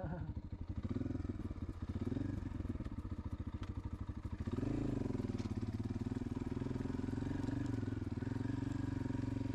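250cc dirt bike engine running under way, with a brief rise in revs about four and a half seconds in before it settles and holds steady.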